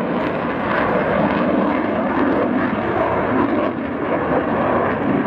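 Fighter jet flying its display overhead: a steady rush of jet engine noise.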